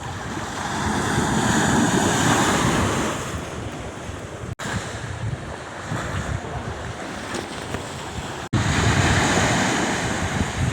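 Sea surf washing in and ebbing, with wind buffeting the microphone. The sound drops out for an instant twice, a little before halfway and again about three quarters through.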